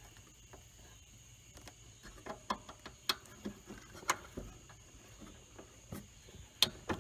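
Light metallic clicks and taps, scattered and irregular, from a mower deck's mounting pin and its bent retaining clip being worked loose by hand. Under them runs a steady high insect drone, typical of crickets.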